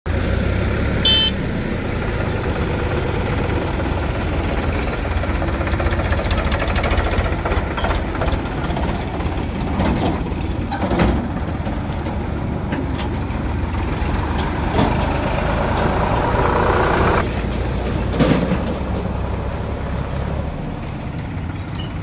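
Farm tractor's diesel engine running steadily with a low rumble as the tractor and its trailer drive past, with a brief shrill tone about a second in.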